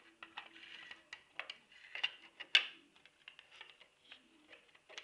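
Small clicks, taps and rustling from handling small plastic light parts, with one sharper click about two and a half seconds in.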